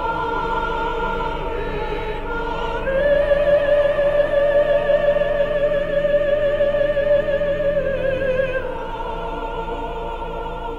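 Operatic singing: a singer holds one long note with vibrato from about three seconds in until near the end, over sustained accompaniment.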